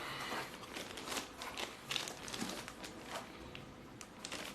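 Packaging being handled: plastic and paper crinkling and rustling, with scattered small clicks and knocks.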